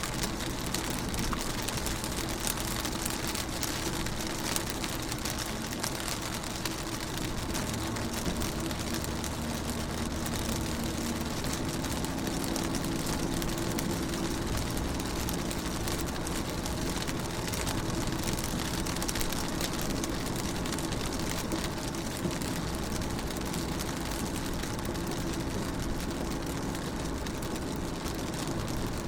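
Rain falling on a window pane: a steady hiss of many small drop ticks. Underneath runs a steady low hum.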